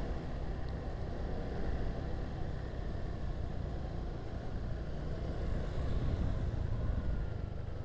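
Motor scooter being ridden, heard from a helmet-mounted camera: a steady low rumble of wind on the microphone mixed with engine and road noise.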